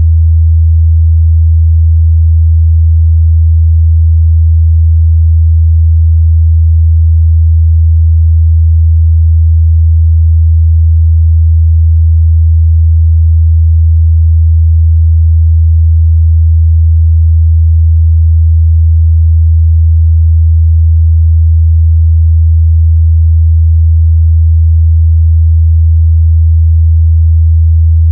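Pure 81 Hz sine-wave test tone, a steady low hum held at a constant loud level with no change.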